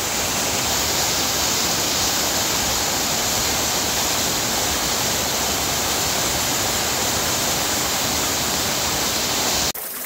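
Small waterfall pouring into a shallow spring-fed pool: a steady rush of falling water that cuts off suddenly near the end.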